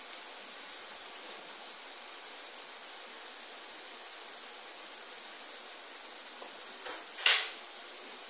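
Urad dal vadas deep-frying in oil over a low flame: a steady sizzle of bubbling oil. About seven seconds in come two short clatters close together, the second louder.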